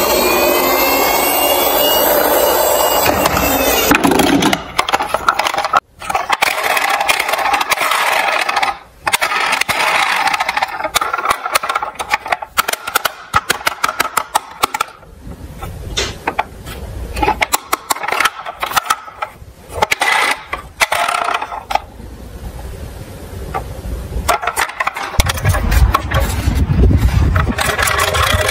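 Toy ambulance's electronic siren wailing up and down, followed by many clicks and clatter of plastic toy vehicles being handled. A low rumble near the end, as a toy ambulance rolls on a wooden board ramp.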